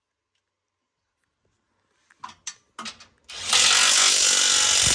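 Impact wrench hammering a driveshaft bolt tight in one loud burst of about two seconds, after a few light metallic clicks from the socket going onto the bolt.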